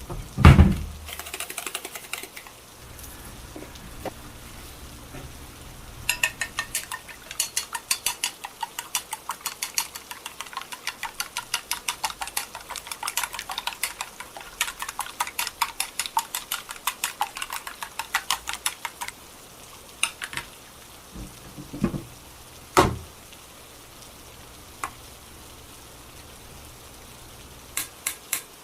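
Quick, even clinking of a utensil against a bowl, about four to five strokes a second for some thirteen seconds, as in mixing or beating in a bowl. It is framed by a few single knocks of kitchenware.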